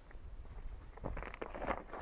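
Footsteps crunching on a rough shoreline, starting about a second in and quickening, over a low steady rumble.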